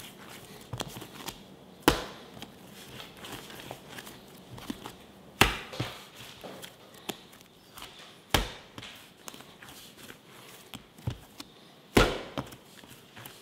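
Bread dough slammed down hard onto a bamboo board four times, about every three and a half seconds, with quieter slaps and rubbing of hand-kneading in between. This is slap-and-fold kneading, striking the elastic dough to develop its gluten and stretch.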